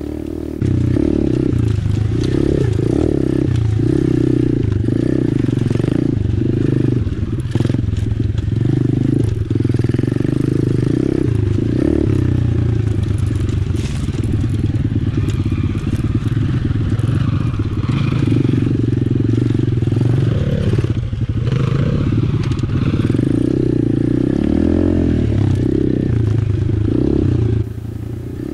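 Apollo RFZ 125cc pit bike's single-cylinder four-stroke engine revving up and down as it is ridden over a rough dirt trail, with knocks and rattles from the bike. The engine sound gets louder about half a second in and drops back just before the end.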